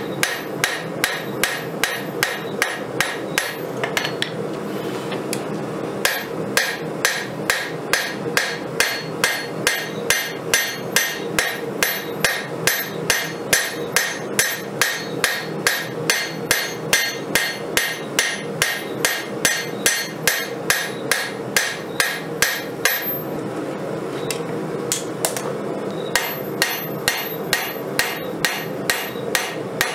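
Hand hammer forging hot 5160 steel on an anvil: blows in a steady rhythm of about two to three a second, each with a bright ring. The hammering breaks off briefly about four seconds in and again near twenty-three seconds.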